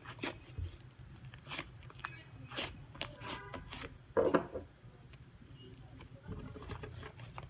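Slime being squeezed, poked and pulled by hand, giving a run of sticky clicks and crackles, with one louder squelch about four seconds in.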